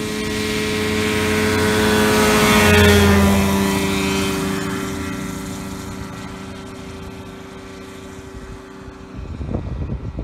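Cyclone AX2000 microlight's two-stroke engine and propeller at full power on the takeoff run, growing louder as it approaches, passing about three seconds in with a drop in pitch, then fading as it climbs away. A few rough low bumps near the end.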